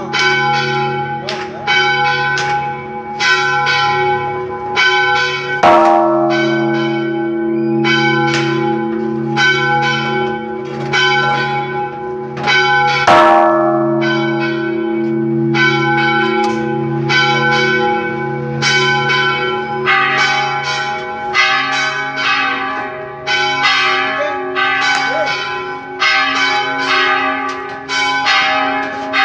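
Church bells pealing: several bells struck in quick succession, about two strokes a second, over a lingering hum from the larger bells. A heavier, deeper-sounding stroke comes about six seconds in and again about thirteen seconds in.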